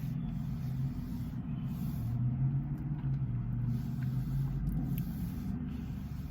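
Car engine idling, heard from inside the cabin: a steady low hum.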